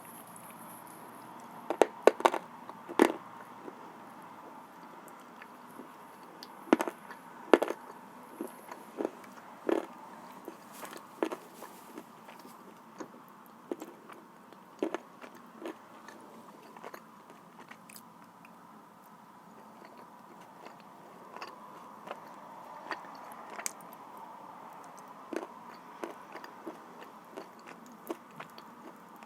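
Close-up biting and chewing of blue Uzbek clay: sharp crunches, loudest in a cluster about two seconds in, then irregular crunching and clicking chews that grow sparser.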